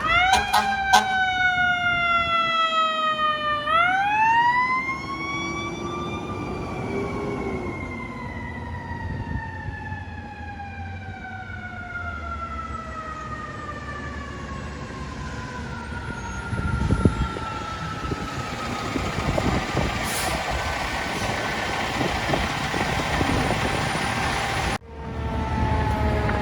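Fire truck's mechanical siren winding up sharply once, about four seconds in, then slowly winding down in pitch for most of the rest, over truck engine and street noise. The sound breaks off near the end and a new siren comes in.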